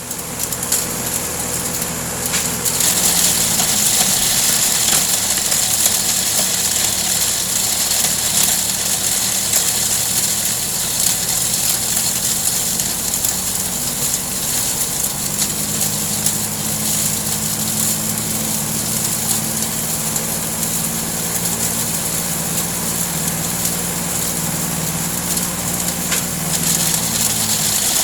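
Small four-stroke grass-cutter engine running a homemade grinder, with a dense steady hiss over the engine note as goat droppings are milled fine. The engine's note changes about two and a half seconds in and again about halfway through.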